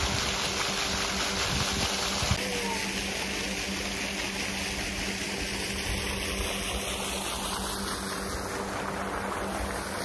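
Pond fountain spraying: a steady rush of falling water with a low hum under it.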